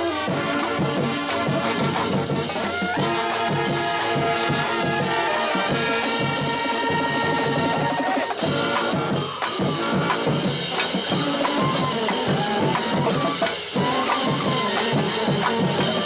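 High school marching band playing in the stands: brass and saxophones holding notes over drums and crash cymbals.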